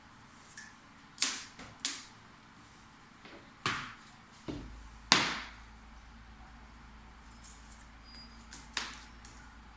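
Thin plastic frame strips being handled and set down on a canvas print on a table: about six short, sharp clacks at uneven intervals, the loudest about five seconds in.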